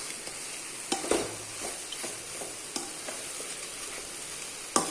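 Pepper chicken sizzling as it fries dry in a kadai (wok), stirred with a spatula that knocks against the pan a few times.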